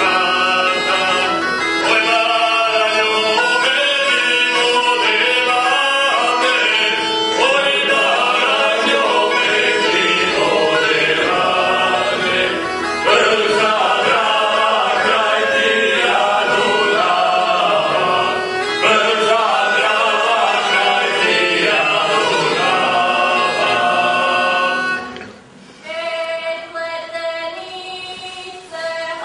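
Group of men singing a Croatian folk song over a bagpipe's steady drone. Near the end it drops quieter and the men sing on unaccompanied.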